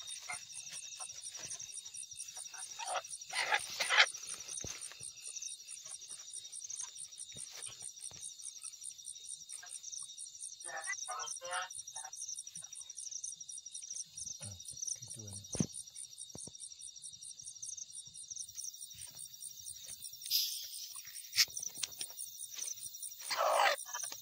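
Crickets chirping in a steady, rapid pulsing trill, with scattered knocks and rustles of handling.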